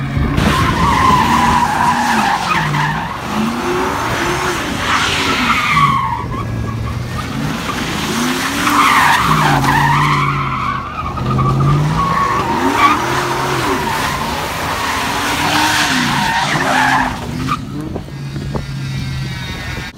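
Pickup truck doing donuts: its engine revs up and down again and again while the rear tires squeal and skid on the pavement. The tire squeal fades near the end.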